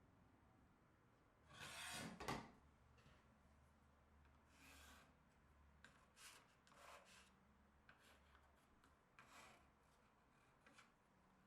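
Faint rubbing scrapes on wood: a handful of short strokes, the loudest about two seconds in, over near silence.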